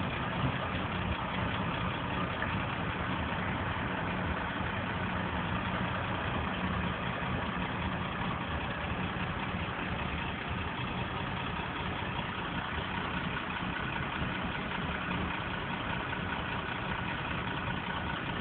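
Car engine running steadily with road and traffic noise, heard from inside the car's cabin.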